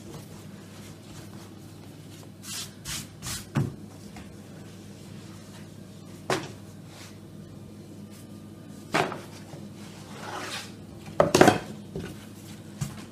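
Hands handling thin sheets of rolled dough on a large wooden board, and a thin wooden rolling stick knocking against the board. The sounds are scattered short knocks and rustles over a steady low hum, loudest about a second and a half before the end.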